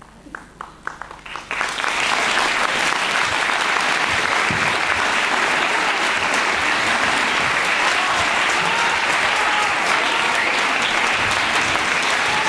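Theatre audience applauding: a few scattered claps, then full, steady applause from about a second and a half in, with a few voices calling out over it near the end.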